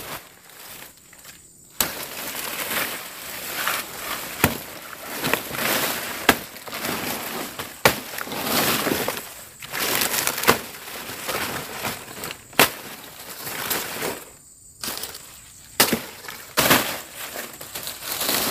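Dry banana leaves and stem sheaths crackling and tearing as they are stripped from a banana plant, with about eight sharp cracks at irregular intervals as pieces snap or are chopped.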